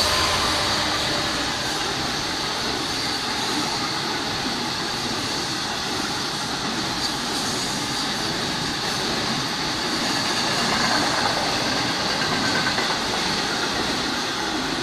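A freight train running past, its wagons making a steady rumble and rattle on the track.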